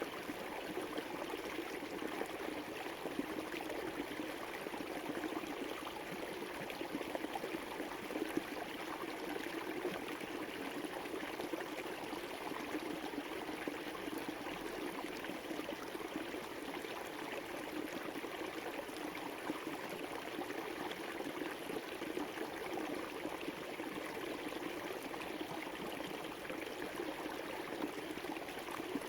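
River water flowing over rocks: a steady rushing and gurgling with no breaks.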